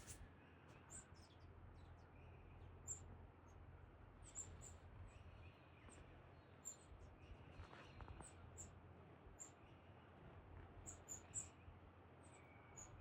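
Red-browed finches calling: faint, short, very high-pitched peeps scattered irregularly, some in quick pairs or clusters, over a steady low background hum.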